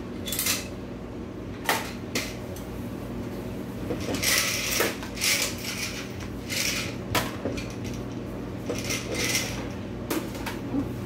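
Plastic plates knocking and clattering as they are lifted out of a dishwasher rack, wiped with a towel and stacked, in irregular clicks and short rustling bursts.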